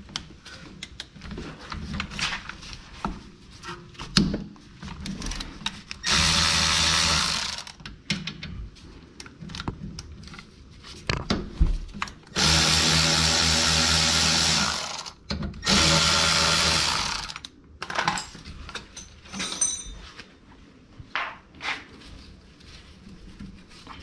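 A power tool run in three bursts, the middle one the longest and the last two almost back to back, with scattered clicks and clanks of tools and metal parts between.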